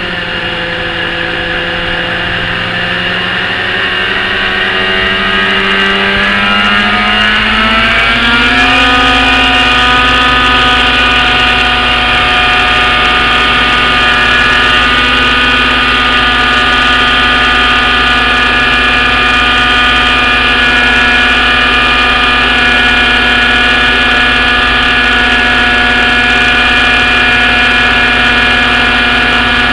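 Thunder Tiger Raptor 50 RC helicopter's .50-size nitro glow engine running through a rear exhaust, a steady buzzing drone. About eight seconds in, its pitch rises and then holds steady at the higher speed.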